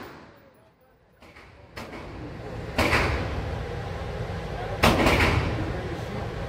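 Gunshots in an indoor shooting range: two faint reports, then two loud shots about two seconds apart, each ringing out in the range's echo.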